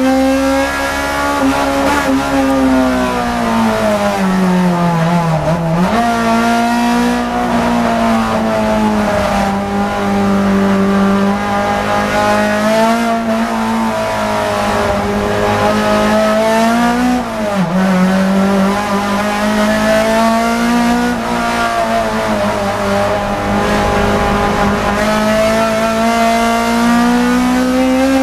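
Race car engine heard from inside the cabin, pulling hard through the gears. Its note rises and falls with the corners, and twice it drops sharply and then picks back up, about five seconds in and again near the middle.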